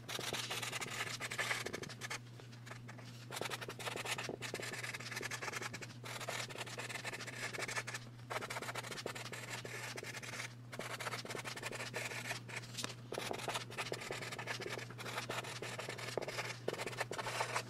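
Orange marker writing on pink card stock: the tip scratches across the card in stroke after stroke, with short pauses between words.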